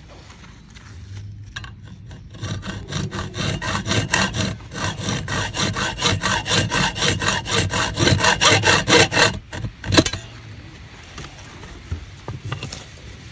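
Saw blade sawing back and forth into the tombac jacket of a phosphorus-filled incendiary bullet held in a vise, in quick, even strokes that grow louder, then stopping with a sharp click about ten seconds in.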